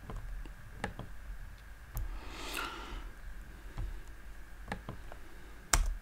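Faint scattered clicks from a computer mouse and keyboard, single clicks about a second apart, the sharpest near the end. A soft breathy rustle about halfway through.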